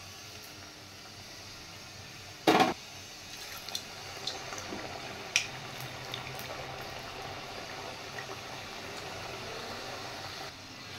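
Samosas deep-frying in hot oil: a steady bubbling sizzle. A short loud burst comes about two and a half seconds in, and a few sharp clicks follow over the next few seconds.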